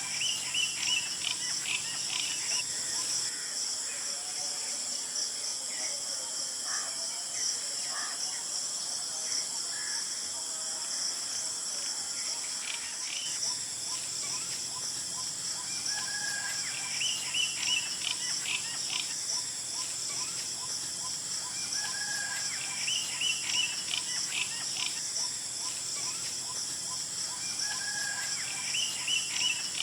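Golden oriole calling: a short whistled note followed by a quick run of higher chattering notes, repeated several times, over steady high-pitched insect buzzing.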